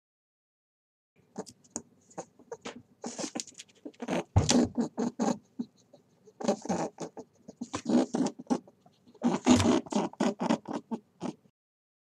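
Rabbit sounds: a rapid run of short clicks and grunts in several clusters, with brief pauses between them.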